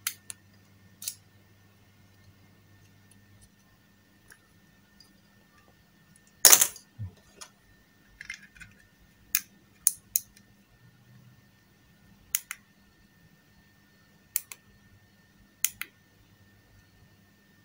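Scattered clicks and knocks from handling the CNC 3018 Pro's plastic offline controller and its SD card, with one louder knock about six and a half seconds in; the card is being reseated after a card error. A faint low hum stops about three and a half seconds in.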